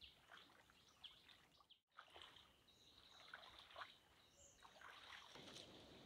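Near silence: faint outdoor ambience with a few short, faint ticks and chirps.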